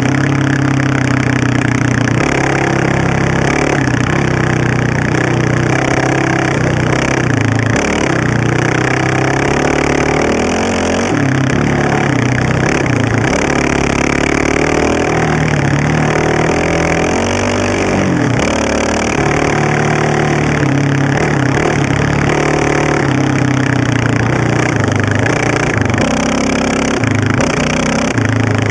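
Honda TRX700XX sport ATV's single-cylinder engine with an FMF aftermarket header, ridden along a gravel trail with the throttle repeatedly opened and eased off, so the engine note keeps rising and falling over a steady rush of noise.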